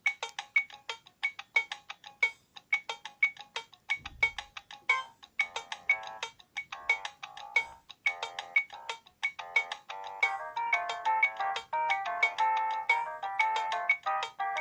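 Sony Ericsson J300 mobile phone playing a ringtone: a rhythmic melody of short plucked notes, with fuller held chords joining about ten seconds in.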